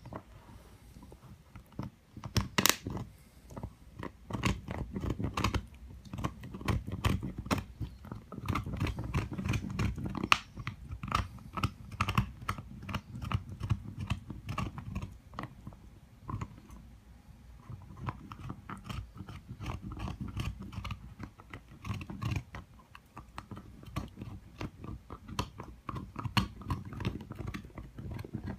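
A dog gnawing on an antler chew: teeth clicking, scraping and crunching on the hard antler in a continuous, uneven run of clicks.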